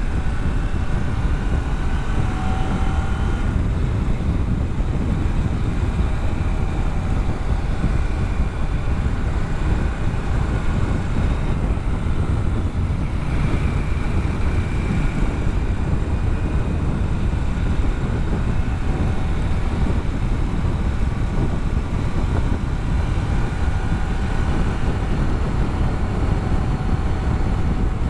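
Motorcycle under way at road speed: a heavy, steady rumble of wind on the microphone over the engine, with faint engine tones drifting up and down in pitch.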